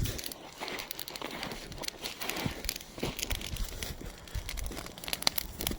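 Wood fire crackling, with irregular sharp pops and snaps and a few low thumps.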